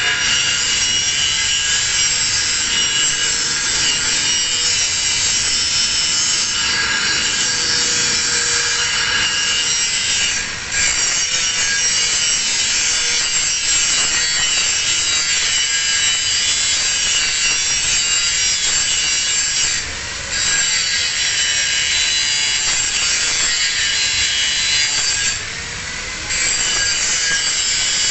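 Angle grinder grinding a single bevel on steel: a continuous harsh grinding noise that eases off briefly three times.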